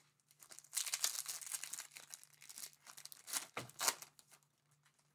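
Foil wrapper of a trading-card pack crinkling and tearing as hands open it, in irregular crackly bursts, loudest about a second in and again just before four seconds.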